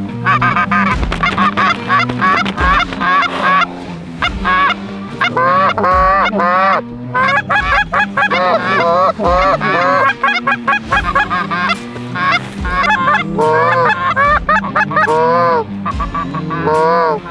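Goose honks and clucks in rapid, overlapping runs, the calls swooping up and down in pitch, over background music with a steady bass line.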